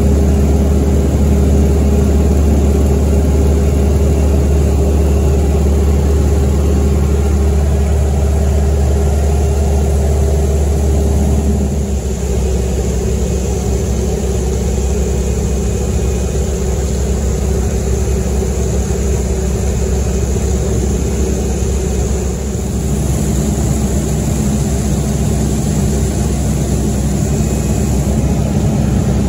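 North American T-6 Texan's nine-cylinder Pratt & Whitney R-1340 radial engine and propeller droning steadily, heard from inside the cockpit. The tone shifts abruptly twice, about twelve and twenty-two seconds in.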